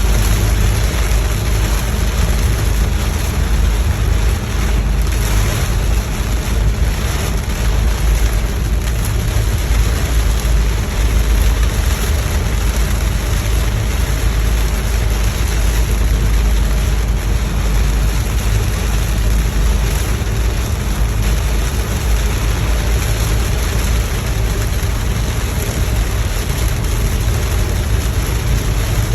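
Car driving in heavy rain: a steady hiss of rain over a constant low rumble of road and engine noise.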